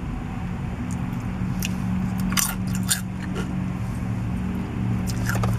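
Tortilla chips being bitten and chewed close to the microphone, a cluster of sharp crunches around the middle, over a steady low hum.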